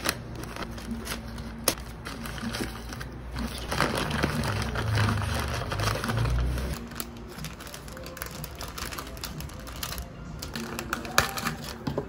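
Background music under scattered sharp clicks and knocks.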